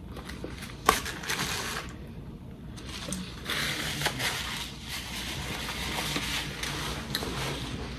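Paper napkin crinkling and rustling as it is handled, with a sharp click about a second in.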